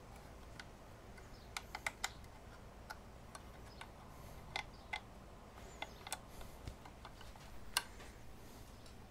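Faint light metallic clicks of a hex key and screws against the air filter's metal bracket as the screws are turned in by hand: a quick cluster of clicks about two seconds in, then single clicks every second or so.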